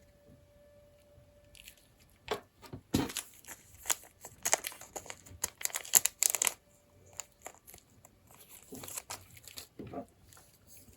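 Knife packaging being unwrapped by hand: crinkling and tearing in irregular bursts, busiest in the middle, then a few more rustles near the end.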